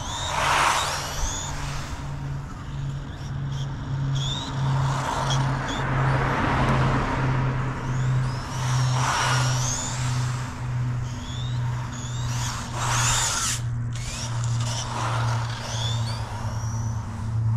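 Electric Team Associated RC buggy driving back and forth on asphalt: a whining motor that rises and falls with tyre noise swelling as it passes, several times.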